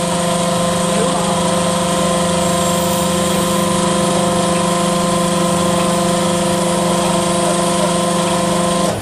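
Charcoal extruder press machine running, a steady mechanical hum with several constant tones that cuts off at the very end.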